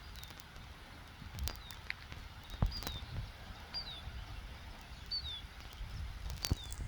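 A small bird calling with short, downward-sliding chirps, about one every second or so. Low rumbling noise and a few sharp clicks run underneath.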